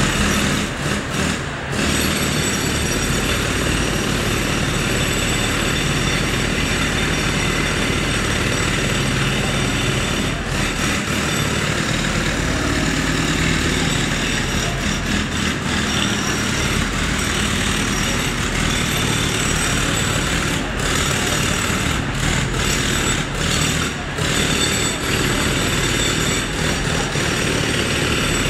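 Roadworks machinery running steadily at night: a loud, continuous mechanical din of engines and power tools.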